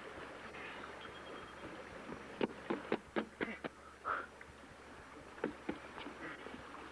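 Footsteps on wooden bridge planks as a man staggers across: a quick run of knocks about two and a half seconds in and two more later, over a steady hiss of outdoor wind.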